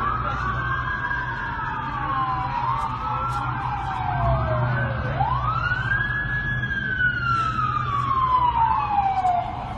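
Several emergency-vehicle sirens wailing at once, their slow rising and falling tones overlapping.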